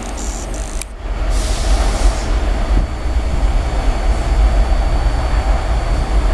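R160 subway train pulling away from the station into the tunnel: a steady low rumble of the train running on the rails. There is a brief dropout just under a second in.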